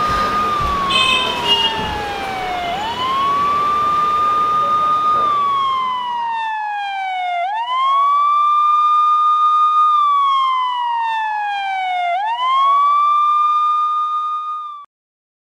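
Emergency siren wailing: each cycle sweeps quickly up, holds high and then falls slowly, repeating about every five seconds. It cuts off suddenly near the end.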